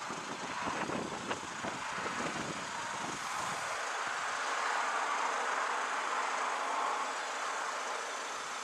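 Distant jet airliner engines running at low power as the aircraft taxis, a steady hiss that swells slightly midway. A road vehicle passes with a low rumble in the first few seconds.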